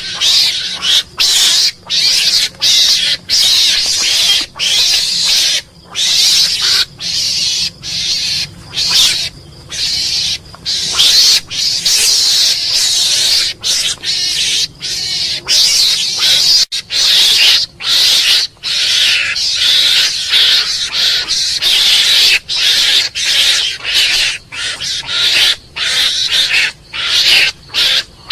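Mongoose calling: harsh, high-pitched calls repeated over and over in rapid succession with short breaks between them.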